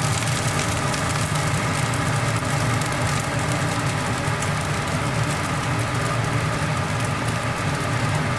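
Steady low droning hum of kitchen equipment, with faint crackling and ticks over it.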